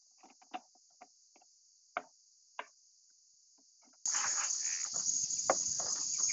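Small clicks and taps of PVC pipe pieces being handled, over a faint steady insect drone. About four seconds in, a much louder insect chorus comes in, with rustling and one sharp knock.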